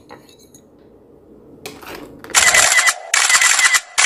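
Low room noise, then about two seconds in a camera shutter sound effect clicking rapidly in two short bursts, with a third starting near the end.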